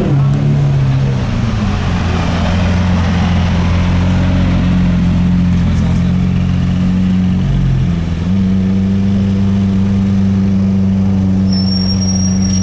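Lamborghini Aventador's V12 idling steadily just after a short rev that falls away at the start. The idle tone steps up slightly about eight seconds in.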